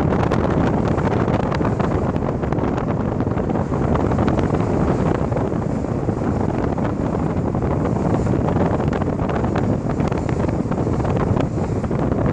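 Wind buffeting the microphone with the rumble of a car driving along a city street, heard from inside the car: a steady, loud noise with frequent crackles.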